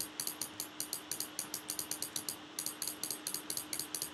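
Rapid, even clicking, about six sharp clicks a second with a brief gap about two and a half seconds in, over a faint steady hum.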